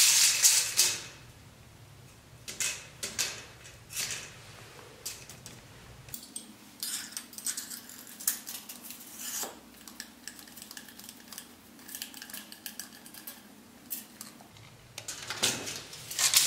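Steel tape measure blade and the small metal clip fitted on it rattling, scraping and clicking as they are handled, in irregular bursts, loudest about the start and again near the end.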